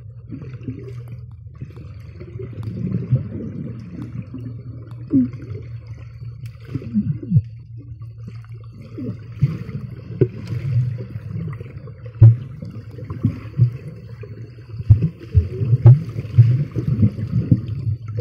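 Underwater pool sound picked up by a camera's microphone sealed in a waterproof case: a steady low hum with bubbles gurgling and popping as a swimmer moves past, and irregular knocks and thumps that come more often in the second half.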